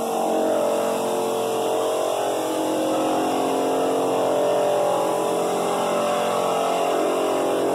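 Walk-behind drum floor sander running steadily as it sands a hardwood floor, together with a shop vac drawing its dust through a cyclone separator in place of the sander's own blower, which is not working.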